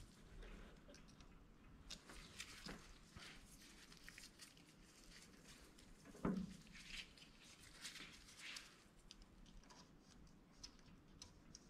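Faint clicks and rustles of a steel feeler gauge set being handled while checking the valve clearance, with one soft knock about six seconds in.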